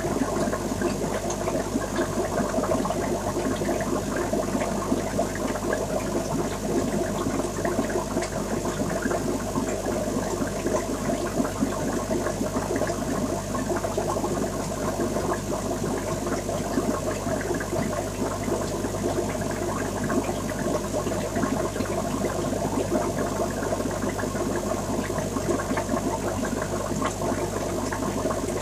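Aquarium water circulating: a steady wash of splashing, bubbling water with a low hum under it.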